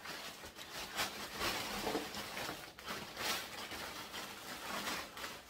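Thin plastic packaging bag rustling and crinkling in irregular bursts as it is handled and pulled off a kitchen appliance.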